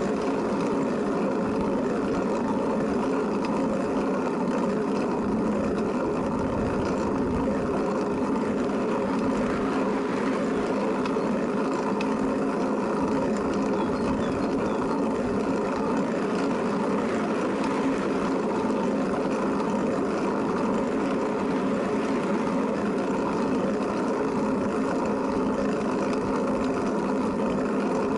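Steady running noise of a moving vehicle, an even hum with several constant tones that does not change.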